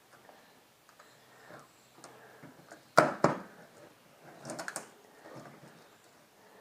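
Small speedometer parts being handled and fitted into their housing: faint scattered clicks and rustles, a sharp knock about three seconds in, then a quick cluster of clicks.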